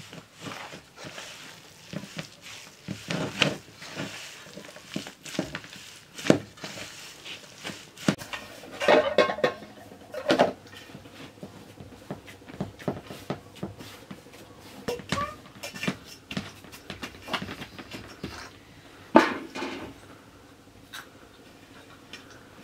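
Dough being mixed and kneaded by hand in a metal bowl, with scattered knocks and clinks of metal bowls and cups. There is a denser run of clatter about halfway through and one louder knock near the end.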